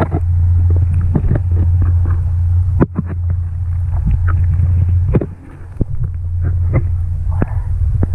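Steady low, muffled rumble of water moving around a submerged camera, with scattered clicks and knocks of hands and the camera against rocks. The rumble drops out briefly twice, about three and five seconds in.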